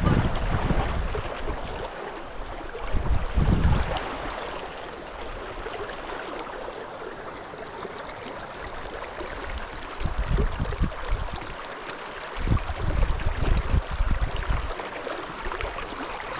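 Kasilof River current rushing steadily around the anglers. A few louder low rumbles come and go, from wind buffeting the microphone.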